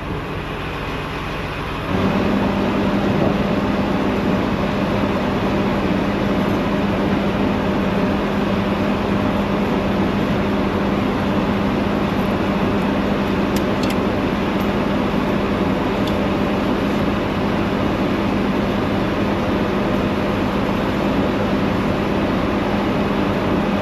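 A vehicle engine idling nearby, a steady hum with a constant low tone that comes in louder about two seconds in and holds.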